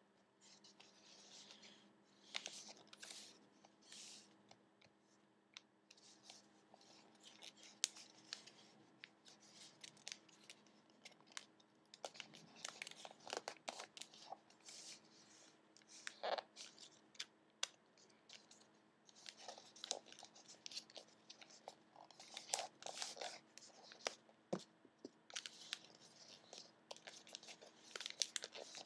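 A sheet of origami paper rustling and crinkling as it is folded and creased by hand, in short, irregular crackles.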